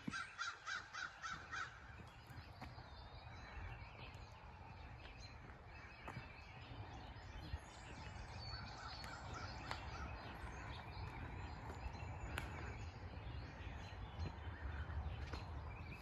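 A bird giving a rapid series of about eight harsh calls in the first two seconds, then more calls and thin chirps from birds scattered through the rest, over a steady low rumble.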